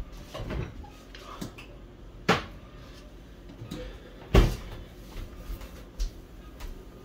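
Kitchen handling noises: a few separate knocks and clunks as things are picked up and set down, the two loudest about two and four and a half seconds in.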